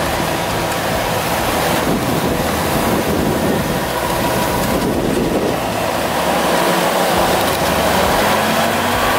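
Off-road 4x4 engines running steadily while tyres churn through deep snow, with a constant noisy rush.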